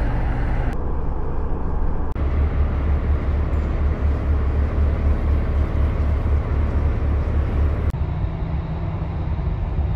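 Steady low mechanical hum of the Strépy-Thieu boat lift's caisson machinery as the caisson carries the boat down. The pitch does not change, and the hiss above it shifts abruptly a few times.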